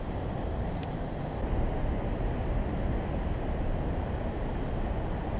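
Steady wind rumble on the microphone, mixed with the wash of ocean surf breaking against the rocks.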